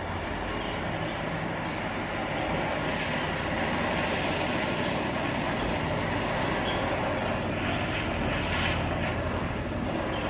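Handheld kitchen blowtorch burning with a steady hiss, its flame caramelising a layer of sugar on top of a custard-set rice pudding.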